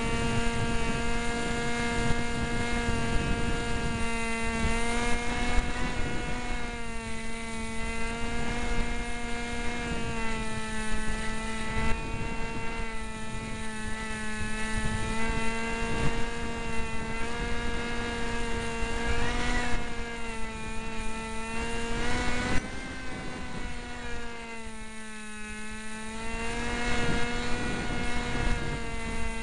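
The small electric motor and propeller of a Cox SkyCruiser RC plane whine steadily at near full power, heard from a keychain camera on board, with wind buffeting the microphone. The pitch sags a little a few times, most deeply about 25 seconds in, when the sound also drops.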